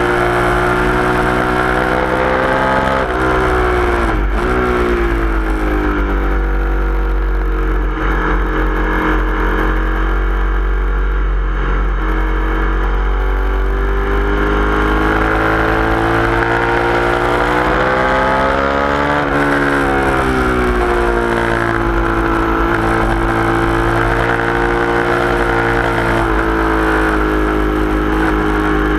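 Sport motorcycle engine running hard at high revs, heard from onboard the bike. The revs drop sharply about four seconds in and again around nineteen seconds, then climb back up each time.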